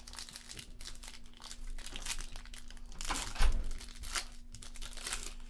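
Foil wrapper of an O-Pee-Chee Platinum hockey card pack crinkling and tearing as it is worked open by hand, with a louder rustle and a single low thump a little past halfway.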